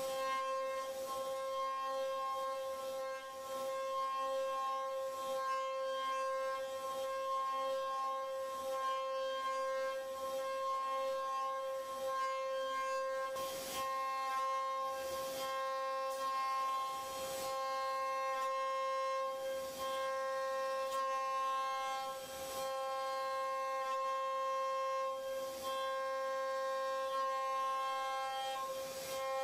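CNC router spindle running with a steady high whine as it mills wood. Now and then, every few seconds, a brief rush of cutting noise comes through.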